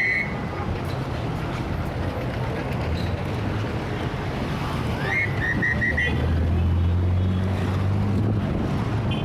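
Heavy city traffic: a steady wash of engines and tyres. About five seconds in there is a short high squeal with a few quick repeats, and from about six seconds in the deep drone of a large vehicle's engine grows louder close by.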